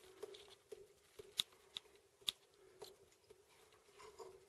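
Burning hand-held torch crackling faintly: sharp, irregular clicks every half second or so.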